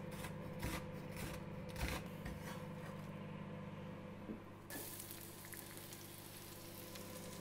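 A cleaver knocks a few times on a wooden chopping board as a red onion is sliced. About two-thirds of the way in, the sliced onion goes into hot oil with spice seeds in a frying pan and starts sizzling, a hiss that stays steady after it begins.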